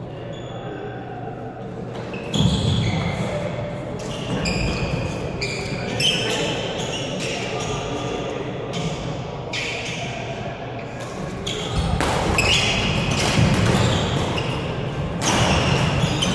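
Badminton in a large gym hall: between points it is quieter, then from about twelve seconds in a rally brings sharp racket hits on the shuttlecock and players' quick footwork on the wooden floor, over chatter echoing around the hall.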